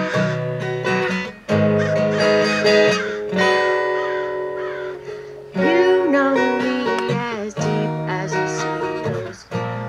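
Acoustic guitar strummed, ringing chords that change every second or two.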